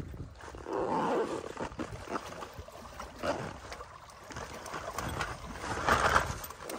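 Wind rumbling on the microphone while small waves lap and splash against shoreline rocks, swelling louder about a second in and again near the end.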